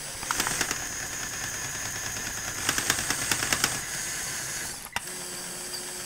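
Small electric motors of a Mould King 17023 brick-built bulldozer whine through plastic gearing and linear actuators as the front bucket is raised, with two spells of rapid clicking from the gears. The drive cuts off sharply about five seconds in.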